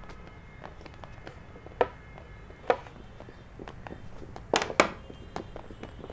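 Added foley footsteps and knocks: a run of irregular hard taps, a few of them sharp and loud, the loudest two close together a little past halfway, over a faint steady hiss.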